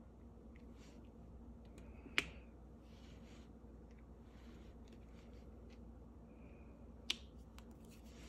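Small ticks and light scratching of a diamond-painting drill pen picking plastic resin drills out of a plastic tray and setting them on the canvas, with two sharp louder clicks, about two seconds in and near the end, over a low steady hum.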